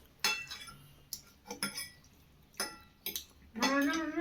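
Metal cutlery clinking against plates during a meal: about six sharp, separate clinks over the first three seconds, then a person's voice near the end.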